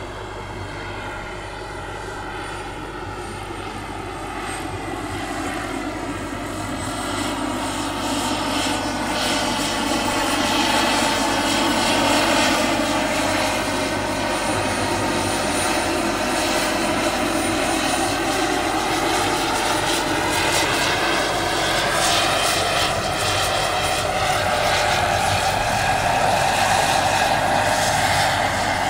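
Turbine engine and coaxial rotors of a large scale RC model Kamov Ka-32 helicopter in flight: a steady whine with a thin high tone above it. It grows louder over the first twelve seconds or so as the model comes closer, then holds steady.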